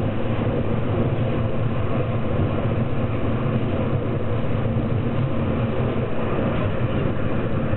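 Funicular railcar running along its track, heard from on board: a steady rumble of wheels and running gear with a low hum underneath.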